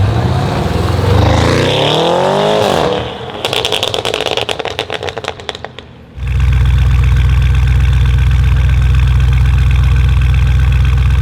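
Audi RS6 C8 Avant's twin-turbo V8 through a Capristo exhaust revving up and falling back, then a rapid string of exhaust crackles and pops that fade away over about three seconds. About six seconds in it gives way abruptly to a steady low engine drone, like an idle.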